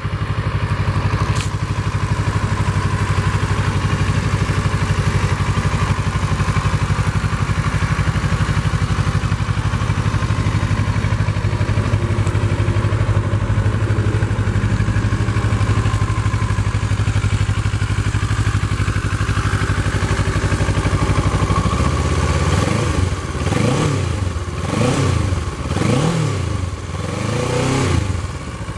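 A 2011 Kawasaki Versys's 649 cc parallel-twin engine idling steadily through its stock exhaust, then revved in several quick blips near the end.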